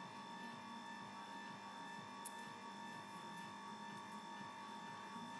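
Faint steady electric hum with a high whine and overtones, and one small click about two seconds in.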